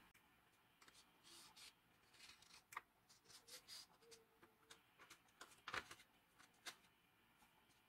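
Faint scratching of a felt-tip marker pen tracing around the edge of a steel sword tang on a sheet of textured handle board, in short strokes, with a couple of sharper clicks about three seconds in and near six seconds in.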